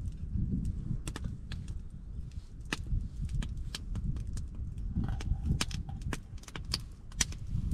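Wood campfire crackling, with irregular sharp snaps several times a second over a low, steady rumble.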